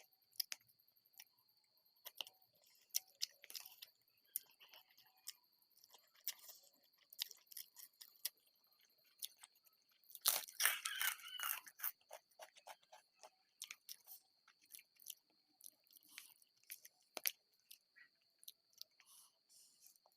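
Irregular crisp crunching and clicking of food, with a denser, louder stretch about halfway through. A faint steady high-pitched whine sits underneath.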